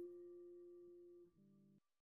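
Faint closing theme music: a held note fading away, then a short final chord that cuts off near the end.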